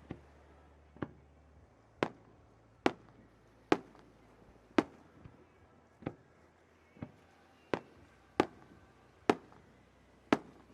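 Fireworks shells bursting overhead: about a dozen sharp bangs, roughly one a second, each with a short echoing tail.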